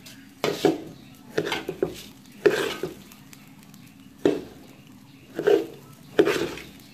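Metal spoon scraping and knocking against a metal pot while stirring rice being fried in oil, the grains rustling with each stroke. The strokes come about once a second, unevenly spaced.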